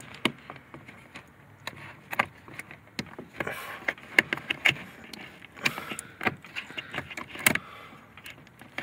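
Plastic wiring-harness connectors in a car door being handled and snapped together, a string of irregular sharp clicks and rattles, the loudest click about a second before the end as a connector's locking tab is flipped into place.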